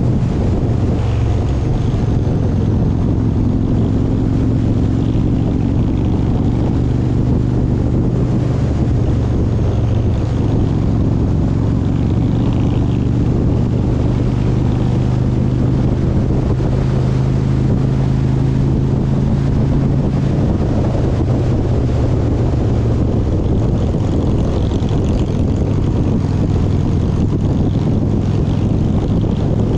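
A motor vehicle's engine running steadily at cruising speed, a constant drone under a wash of travel noise.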